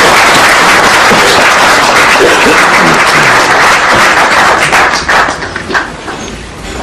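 Audience applauding at the end of a lecture: a dense, loud round of clapping that thins out into scattered single claps after about five seconds.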